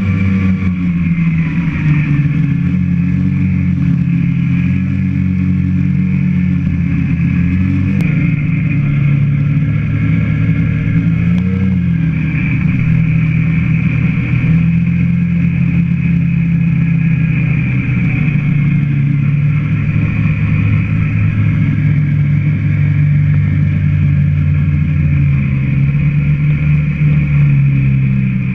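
A vehicle engine running steadily under way, its pitch drifting slowly up and down with speed and no break.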